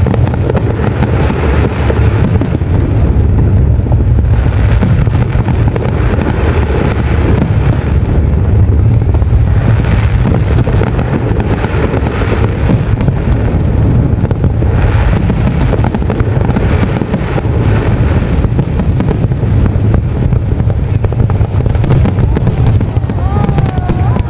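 Aerial fireworks going off without a break: deep booms of overlapping shell bursts under constant crackling. A faint wavering whistle comes in about a second before the end.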